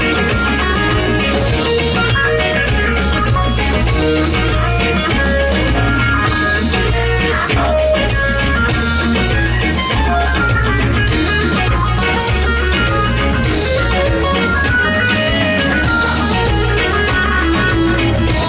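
Live rock band playing an instrumental passage: electric guitar lines over bass and drum kit, with no singing.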